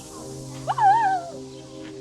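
A peacock calling once, a loud call with a sharp upward rise and a wavering fall lasting about half a second. Background music plays under it.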